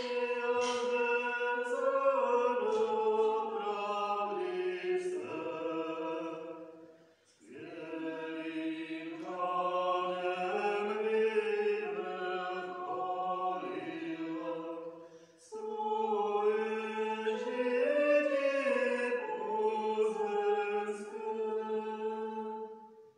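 Voices singing a chant-like liturgical hymn in three phrases, with two short breaks between them, ending just before the end.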